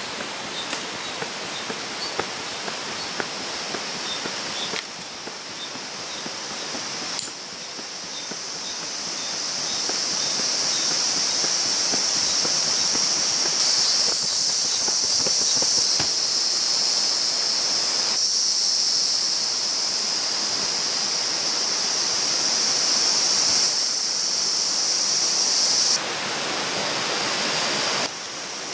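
Steady rush of a river flowing through forest. About a quarter of the way in, a steady high-pitched buzz joins it and becomes the loudest sound, then stops suddenly near the end.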